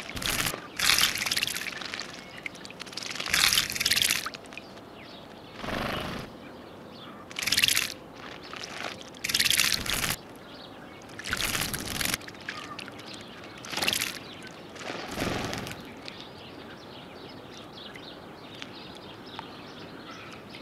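House sparrow bathing in a shallow puddle, splashing water with its wings and body in short bouts, about nine in the first fifteen seconds.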